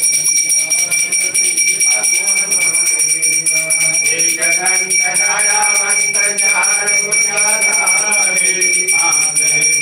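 Puja hand bell rung rapidly and without pause during an aarti, a steady ringing. Voices sing over it from about four seconds in.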